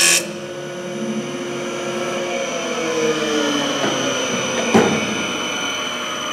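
CNC woodworking lathe: the loud cutting of the wood stops right at the start, leaving its motors running with a steady high whine. A falling tone comes a little before three seconds in, and there is a single sharp knock near five seconds.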